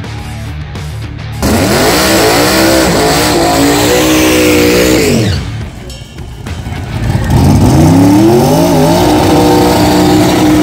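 Drag car doing a burnout: the engine revs up hard and holds high while the rear tires spin and squeal. About four seconds later it drops off, then revs up again and holds near the end.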